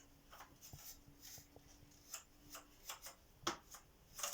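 Faint scattered clicks and taps of the Vax Power 6 vacuum cleaner's plastic parts being handled and fitted together during assembly, with one sharper click about three and a half seconds in.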